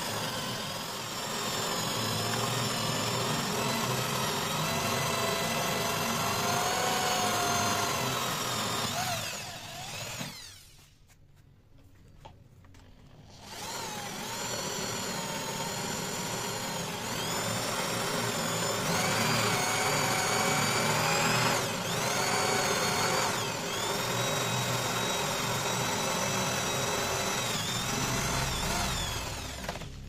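Electric drill mounted in a drill stand boring holes into a wooden block, its motor whine wavering in pitch as the bit cuts. The drill stops for about three seconds a third of the way through, then runs again until just before the end.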